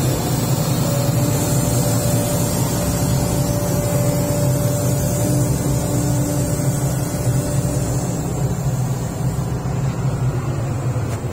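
Tracked hydraulic excavator's diesel engine running steadily, a low even hum, with a thin steady whine over it from about a second in until about eight seconds.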